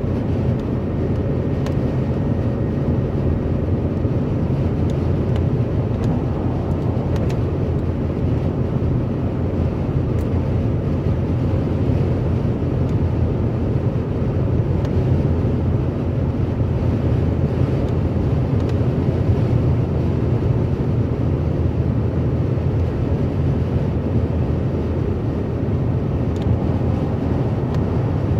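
Steady low rumble of a car cruising at motorway speed, heard from inside the cabin: tyre and road noise with engine and wind.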